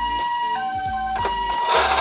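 Toy ambulance's electronic two-tone siren sounding the Japanese 'pee-po' call, alternating a higher and a lower tone about every half second. Near the end a rasping rolling noise cuts in, the toy car running down the slope.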